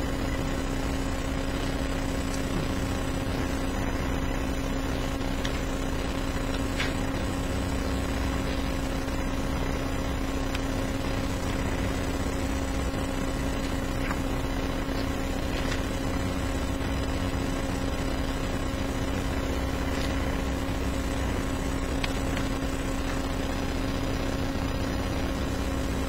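Room tone: a steady hum with a constant low drone and hiss, unchanging throughout, with a few faint ticks scattered through it.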